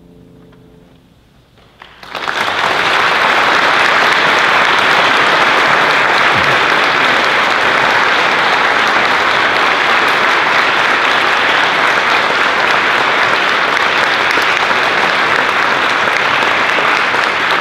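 The last piano chord fades out, then an audience starts applauding about two seconds in and keeps clapping steadily.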